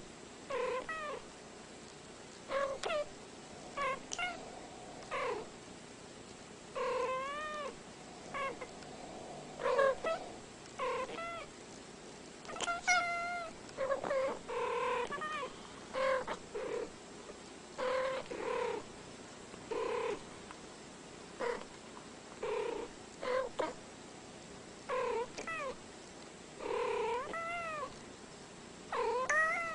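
Two domestic cats trading short meows back and forth, some twenty brief calls with pitch that rises and falls, separated by short pauses.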